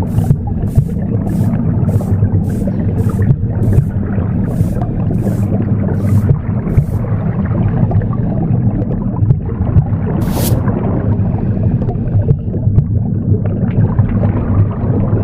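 A steady, low rumbling womb sound mixed with broom sweeping strokes, a little under two a second. The sweeping stops about seven seconds in, with a single stroke a few seconds later.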